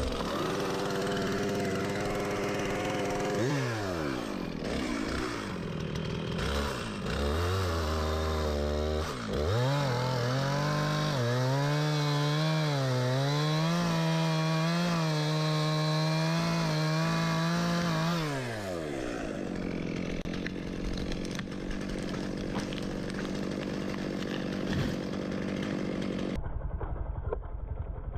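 Gas chainsaw at high revs: the engine note drops about three seconds in, revs back up and holds with a wavering pitch as it cuts into wood, then falls to a lower steady note about two-thirds of the way through.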